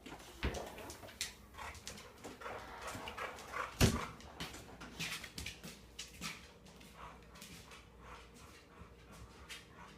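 A dog whimpering, among many short clicks and a single loud knock about four seconds in.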